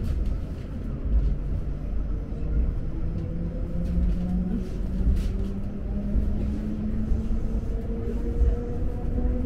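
Electric commuter train running, heard from inside the carriage: a low rumble with a motor whine that climbs steadily in pitch as the train picks up speed.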